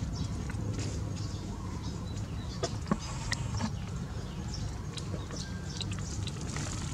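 Outdoor background ambience: a steady low hum with scattered small clicks and a few faint, brief bird-like calls.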